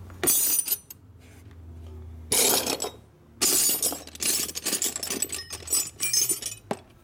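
Loose steel wrenches and sockets clattering and clinking in a metal pail as a hand rummages through them. It comes in a few short bursts, then a longer stretch of jangling from about three and a half seconds until nearly the end, over a low steady hum.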